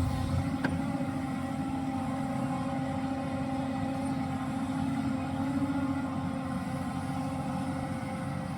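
Hyundai R215L hydraulic excavator's diesel engine running at a steady pitch, with a brief click under a second in.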